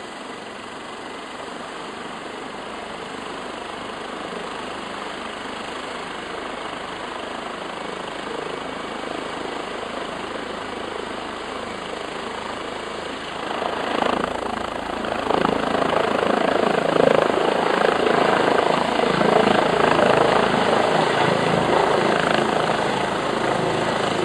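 Eurocopter EC135 rescue helicopter running with its rotors turning on the pad. The noise grows slowly, then gets much louder in two steps about 13 to 15 seconds in as the helicopter lifts off and climbs overhead.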